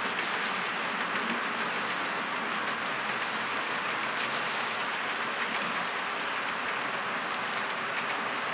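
Model train freight cars rolling past on the track: a steady whirring rattle of small metal wheels on rail, with many quick light clicks from wheels passing over rail joints.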